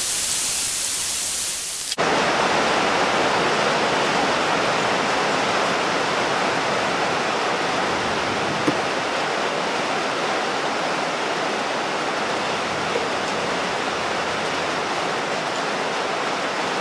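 Steady rushing noise with no rhythm or pitch. A brighter hiss in the first two seconds cuts off abruptly, and a broader, even rush carries on after it.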